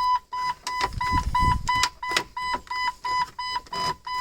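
1997 Jeep TJ's dashboard warning chime beeping rapidly and steadily, about three and a half short high beeps a second, while the dash is being worked on. There is low rustling of parts being handled about a second in.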